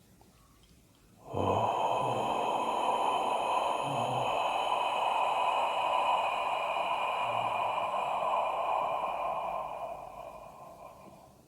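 Ujjayi (ocean breath) exhaled through an open mouth with the throat slightly narrowed: a steady, sea-like hiss that starts abruptly about a second in, lasts about ten seconds, and fades away near the end.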